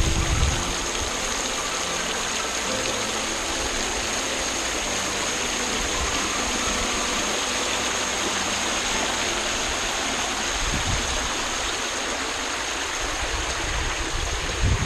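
Steady rush of river current, an even wash of flowing water, with a low thump near the end.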